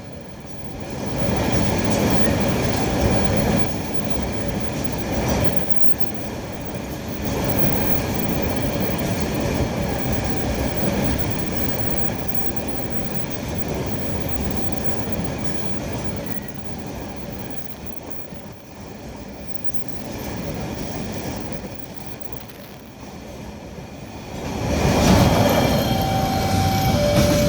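Train running on the rails, a dense rattle and rumble of wheels on track that swells and eases. Near the end it grows louder and a two-tone warning sound begins, a higher note followed by a lower one.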